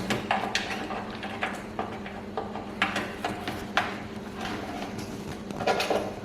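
Irregular small clicks, knocks and rustles of PCIe power cables being handled and fed through a cable-routing hole in a PC case.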